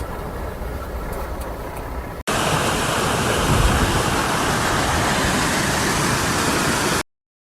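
A low rumble, then after about two seconds a sudden switch to loud rushing floodwater, a steady roar of fast-moving water that cuts off abruptly near the end.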